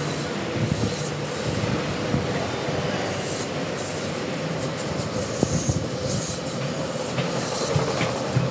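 Container freight train wagons rolling past close by: a steady rumble of wheels on rail, with a faint steady whine over it.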